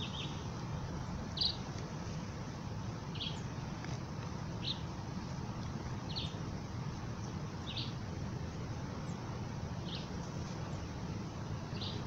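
A bird calling: a short, high chirp repeated about every one and a half seconds, over a steady background hiss.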